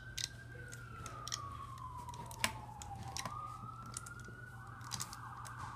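Faint emergency-vehicle siren wailing, its pitch sliding slowly down and then back up, over scattered light clicks of a plastic hook and rubber bands being worked on a Rainbow Loom.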